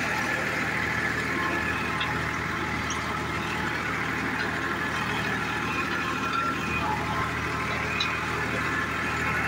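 Powertrac ALT 4000 tractor's 41 hp diesel engine running steadily at an even speed.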